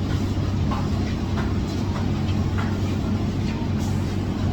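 A steady low hum with a few faint, light clicks over it.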